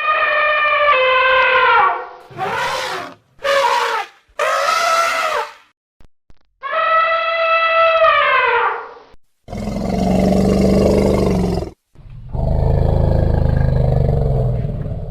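Elephant trumpeting: a long brassy call, three short blasts and another long call falling in pitch. These are followed by two long, low, rough roars in the second half.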